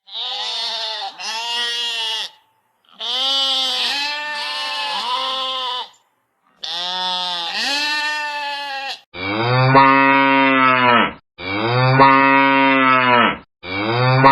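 Three long, wavering bleats from a sheep or goat kid, followed by three louder, lower cow moos, the last one cut short.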